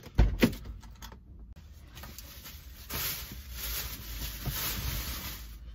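Two dull thumps inside a parked car, then a thin plastic bag rustling for a couple of seconds as it is loaded onto the back seat through the open rear door.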